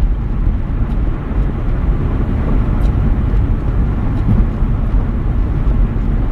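Loud, steady low rumbling noise with no distinct events.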